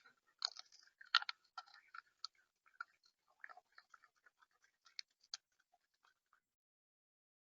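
Irregular clicking and crunching of seed being pecked and cracked at a bird feeder, stopping about six seconds in.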